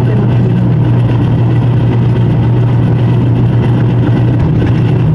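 A motorised sharpening grinder running steadily with a loud, even hum, its pitch shifting slightly about four and a half seconds in, as under a change of load.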